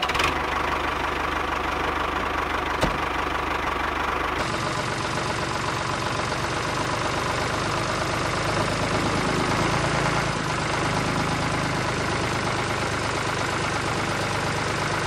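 Tractor engine running steadily at a low, even speed; its tone changes slightly about four seconds in.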